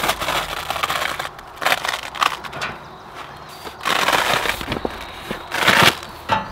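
A roll of tar paper being unrolled and pressed flat, the stiff paper crackling and rustling in several bursts.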